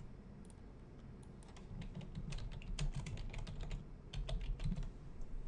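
Typing on a computer keyboard: a quick run of key clicks with a brief pause about four seconds in.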